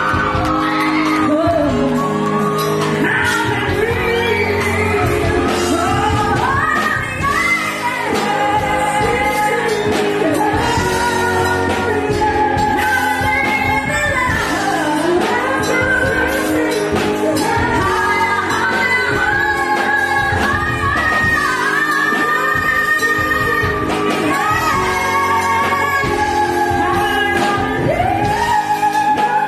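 A woman singing solo into a microphone over instrumental accompaniment, holding long high notes in places.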